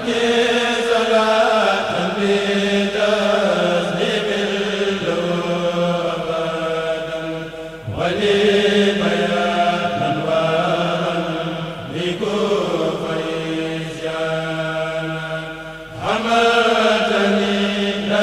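Group of men chanting a Mouride khassida (religious poem) in unison, the kurel's voices held in long sung phrases that start afresh every two seconds or so. The chant dips briefly about eight and sixteen seconds in before the next line begins.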